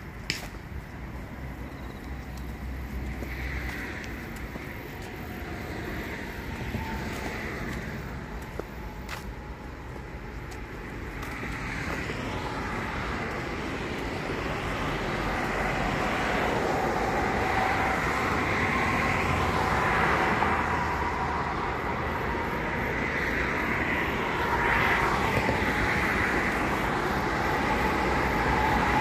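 Steady road traffic noise, growing louder over the second half, with a sharp click right at the start.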